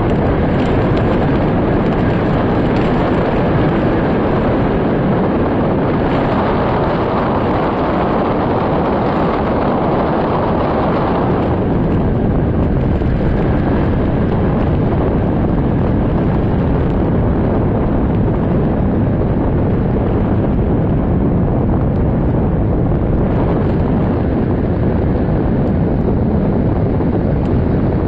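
Strong storm wind buffeting the microphone: a loud, steady rushing noise with no clear pitch, somewhat brighter for a few seconds near the first third.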